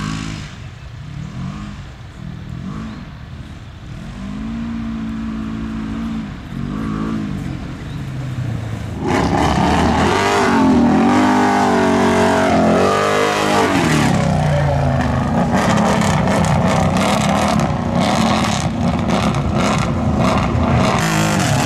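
Off-road engines of side-by-side UTVs and ATVs revving up and down again and again as they spin in loose sand. About nine seconds in the sound gets suddenly louder and rougher, with a few hard revs and then a steady, loud engine note.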